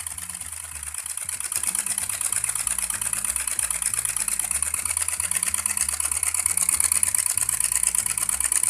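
Small homemade tin-can hot-air Stirling engines running, giving a fast, even mechanical clatter from their pistons and cranks that grows louder about a second and a half in.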